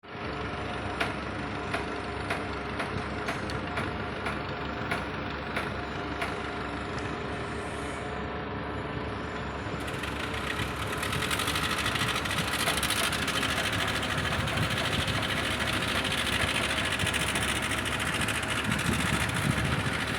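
Welding work: a steady machine hum with sharp clicks in the first several seconds, then from about ten seconds in a loud, steady crackling hiss, typical of an electric welding arc.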